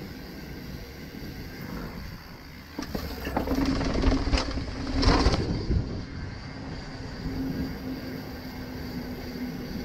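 YT Capra mountain bike rattling over paving and clattering down a flight of concrete steps. The jolts of the drop are loudest in the middle, with steady rolling tyre noise before and after.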